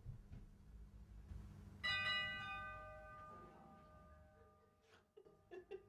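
A single bell-like chime struck about two seconds in, its ringing tones fading away over the next few seconds, over a low steady rumble.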